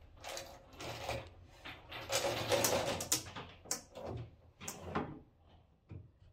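Metal picture-hanging chain rattling and scraping as it is fed down through a drilled hole in the wall's wooden top plate, in a run of irregular bursts with a few sharp clinks near the middle.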